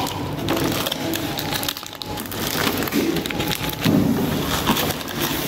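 Plastic biscuit wrappers crinkling and rustling as packs are handled, an irregular run of crackles.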